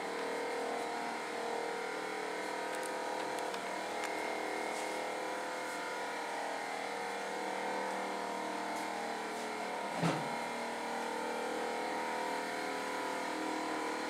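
A steady mechanical hum holding several fixed tones, with a single short knock about ten seconds in.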